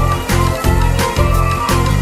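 Background music with a steady beat of about three strokes a second over held bass notes.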